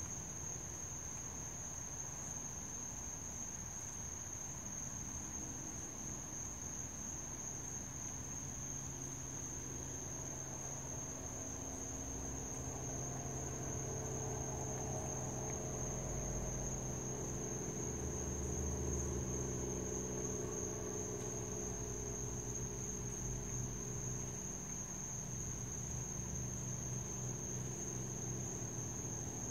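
Crickets trilling in a steady, unbroken high chorus. A low background hum under it grows a little louder midway.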